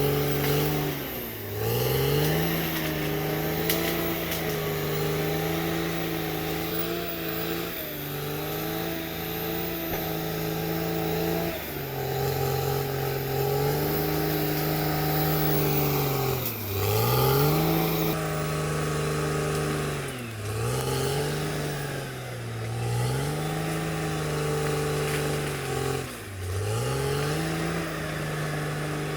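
Caterpillar D6R XL bulldozer's diesel engine running hard, its pitch sagging and recovering every few seconds as it lugs under load while pushing dirt.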